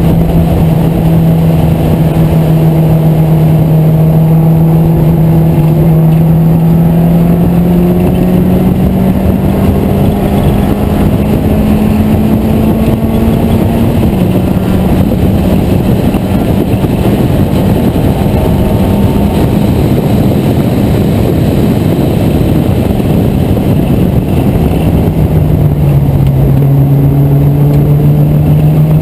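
Vintage British race car's engine running hard on track, heard from the open cockpit over wind noise. Its note climbs slowly through the first half, steps down about halfway, and drops lower near the end.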